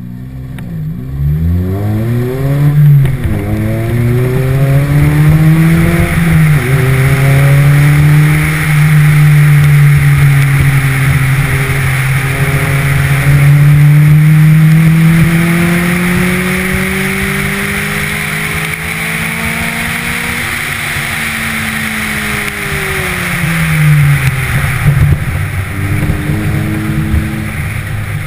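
Car engine accelerating hard from a standing start, its pitch climbing and dropping back at gear changes about three and six seconds in, then held at high revs and varying through the course before falling away near the end as the car slows. A steady rush of wind and road noise runs underneath.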